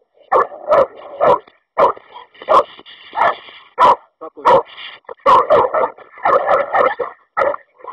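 American Staffordshire terriers barking, loud short sharp barks coming about twice a second, as two dogs meet face to face for the first time.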